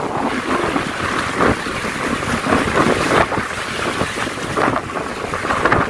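Strong wind buffeting the microphone in uneven gusts over the wash of high waves around a small fishing boat in rough seas.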